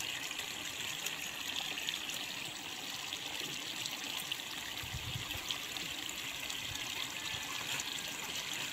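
Steady trickling hiss of water in a flooded rice paddy, with a brief low rumble about five seconds in.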